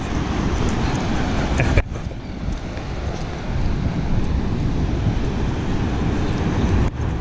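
Wind buffeting the microphone, a dense low rumble, over the wash of surf. It drops off abruptly for a moment about two seconds in and again near the end.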